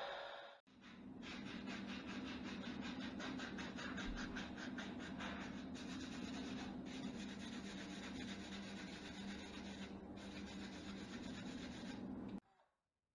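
Hands rubbing along the wooden shaft of a pole spear: scratchy strokes in a quick, even rhythm for the first few seconds, over a low steady hum. It cuts off abruptly near the end.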